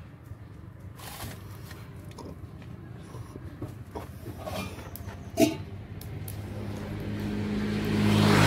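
Roadside traffic: a motor vehicle's engine grows louder toward the end as it approaches. A short sharp sound about five seconds in.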